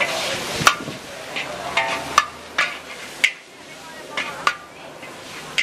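Wok spatula scraping and striking a hot wok while char kway teow is stir-fried, about nine sharp clangs at irregular intervals over the steady sizzle of frying noodles, egg and prawns.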